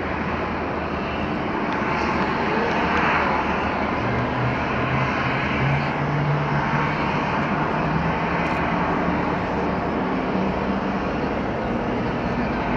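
Japan Airlines Boeing 767-300's twin General Electric CF6 turbofans, a steady jet rumble from the airliner on final approach to land. A low engine hum swells a little from about four seconds in.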